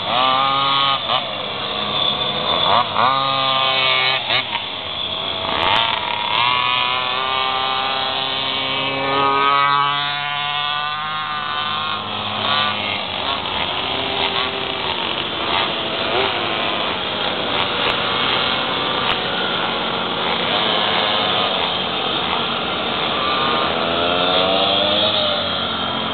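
Small two-stroke pocketbike engines racing around the course, their high-pitched buzz rising and falling in pitch again and again as the riders accelerate and brake through the cones.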